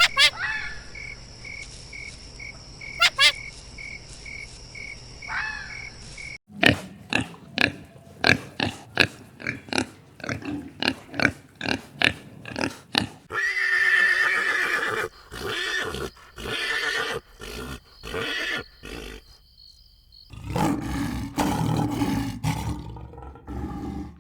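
A string of animal calls and noises from several short clips cut one after another. One stretch holds a quick run of short, sharp calls, about two a second.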